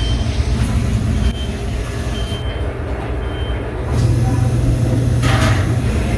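A steady low machine rumble that swells about four seconds in, with a few short, faint high beeps over it.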